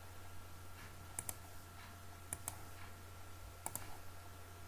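Clicks from a computer mouse and keyboard, in three pairs of short sharp clicks about a second apart, over a low steady hum.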